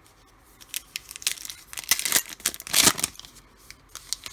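Foil wrapper of a trading-card pack being torn open and crinkled: a run of rustling, tearing noises, loudest about three seconds in.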